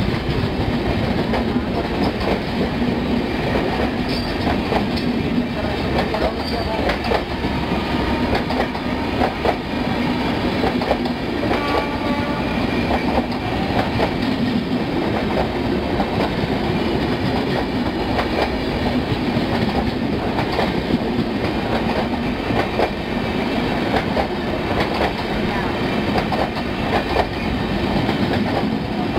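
Red-and-grey Rajdhani Express passenger coaches rolling slowly past a platform, a steady rumble with the wheels clicking over rail joints throughout.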